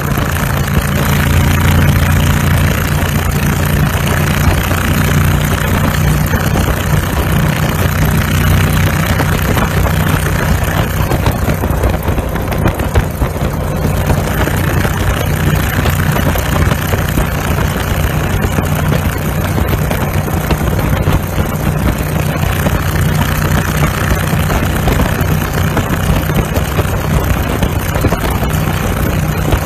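The engine of a small open go-kart-style car running steadily as it drives along the road, with wind rushing over the microphone.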